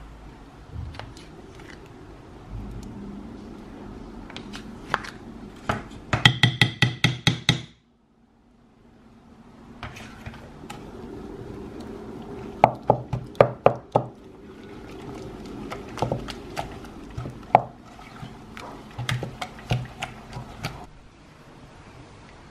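Spoons knocking and scraping against a ceramic mixing bowl while soft cheese is stirred into a thick batter with a wooden spoon. The knocks come in quick runs, the fastest and most ringing about six to seven seconds in. There is a brief silent break about eight seconds in.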